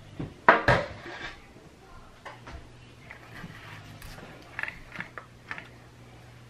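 Kitchen handling noises: two sharp knocks about half a second in, then soft scrapes and light taps as a corn dog is coated with nacho cheese using a spatula brush in a paper bowl. A faint steady hum sits underneath.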